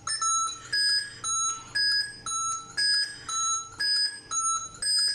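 Siemens Servo 300 ventilator alarm: a repeating pattern of electronic beeps alternating between a lower and a higher pitch, about two beeps a second. The speaker ties the alarm to there being no gas supply connected.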